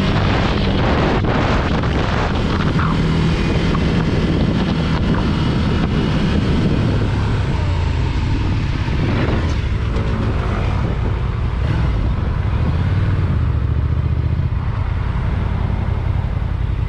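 Motorcycle ridden through city traffic: its engine runs steadily under a continuous rushing road and wind noise, with the engine pitch shifting a little partway through.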